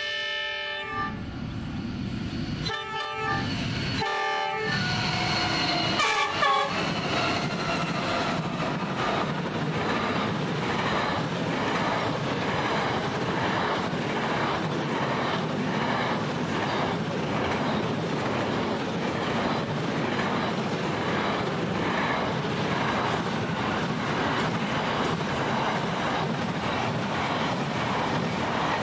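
Horn of a Pacific National NR class diesel locomotive: a blast ending about a second in, then three short blasts, the last dropping in pitch as the locomotives pass. Then a long container freight train running past at about 90 km/h, its wagon wheels clattering over the rail joints in a steady rhythm.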